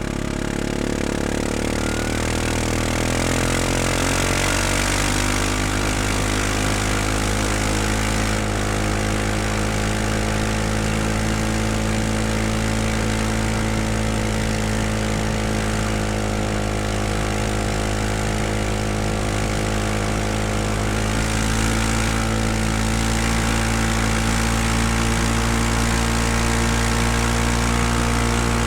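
Utility ATV's four-stroke engine running: its pitch climbs over the first few seconds, then holds at a steady idle, getting slightly louder a little past two-thirds of the way through.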